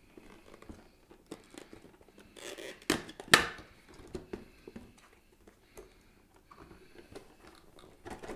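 Cardboard Pop! figure box being worked out of a clear plastic protector case: light rubbing and scraping of card against plastic, with two sharp knocks about three seconds in, the second the louder.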